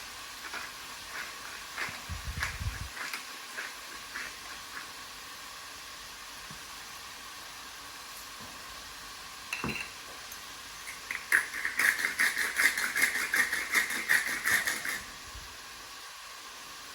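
Chicken frying in coconut oil in a pan, a steady sizzle. Scattered clicks and light knocks in the first few seconds, then a rapid clicking, rattling run that starts about eleven seconds in and lasts about four seconds.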